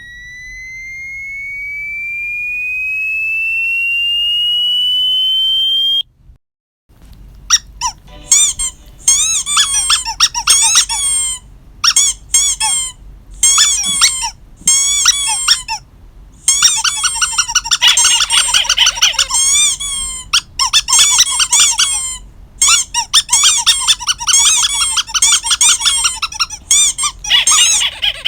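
An electronic tone glides steadily upward for about six seconds and cuts off. After a short pause, a squeaky dog toy is squeezed over and over in quick runs of high squeaks.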